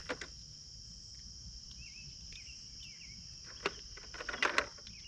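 Steady high-pitched trill of crickets, with a few sharp clicks and a short clatter of rattles near the end.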